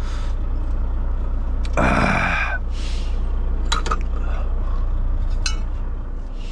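Steady low hum of an idling truck engine, with a short loud rustle about two seconds in and a few light clicks and clinks of food containers being handled.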